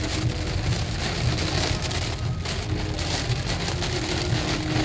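Rain pattering on a car's windshield and roof, heard from inside the car, over a steady low rumble.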